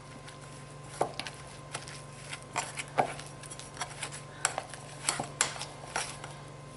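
A metal pastry blender knocking and scraping against a white ceramic bowl as pie dough is worked by hand, giving irregular light clinks and taps, about a dozen in all, over a steady low hum.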